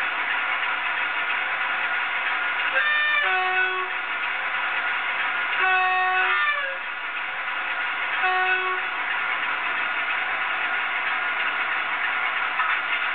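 A model diesel locomotive's DCC sound decoder sounding its horn three times, each toot about a second or less long, with a short pitch step in the first two. A steady hiss runs underneath.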